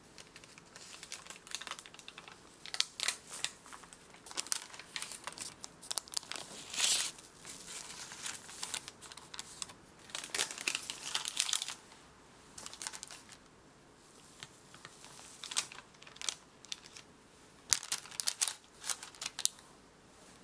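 Baking parchment paper crinkling and tearing as it is peeled away from the sides of a baked cake, in irregular bursts of crackly rustling with a quieter stretch a little past halfway.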